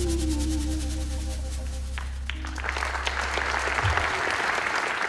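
A live band's held final chord, with a low bass note under it, dies away, and about halfway through an audience breaks into applause that fills the rest.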